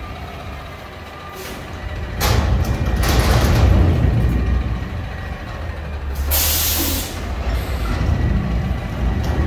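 Front-loader garbage truck's engine rumbling as it pulls forward, growing louder for a couple of seconds from about two seconds in. A short, sharp air-brake hiss comes about six and a half seconds in.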